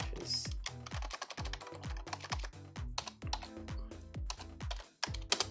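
Background music with a steady beat and a deep falling bass note on each beat, with a rapid patter of sharp clicks through it.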